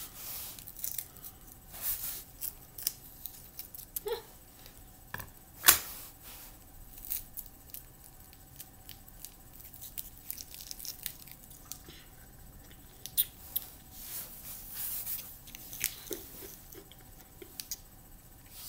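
Scissors snipping a plastic freezer-pop sleeve open, then the thin plastic crinkling and rustling as it is handled, in scattered short clicks and rustles; the sharpest snap comes about six seconds in.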